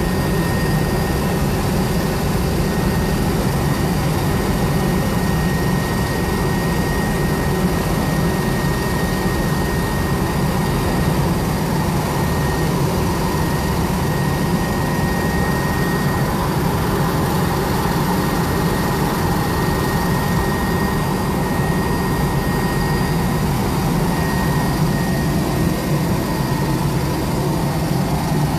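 Helicopter engine and rotor noise heard from inside the cabin: a loud, steady drone with a thin, constant high whine over it.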